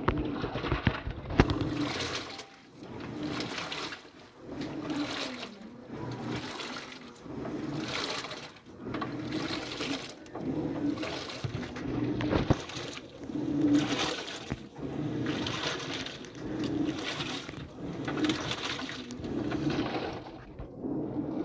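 Samsung 15 kg washing machine in its wash cycle, churning the load and water back and forth in regular surges about every second and a half, with the motor humming under each stroke.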